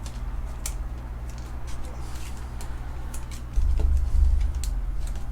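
Trading cards and pack wrappers being handled: scattered light clicks and rustles over a steady low hum, with a louder low rumble of handling about two-thirds of the way through.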